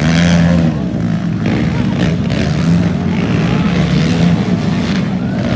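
Racing quads (ATVs) running around a dirt track, their engines making a steady, loud drone whose pitch wavers as the riders work the throttle.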